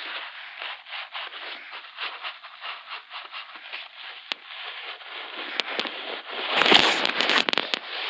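Close-up crinkling and crackling of a small crumpled white sheet rubbed and squeezed between the fingers right at a headset microphone, a dense run of tiny crackles that grows louder for about a second near the end.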